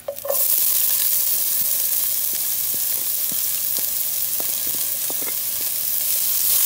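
Chopped onions dropped into hot oil with browned garlic, setting off a loud, steady sizzle that starts suddenly just after the start. A few light taps of a wooden spatula stirring the onions.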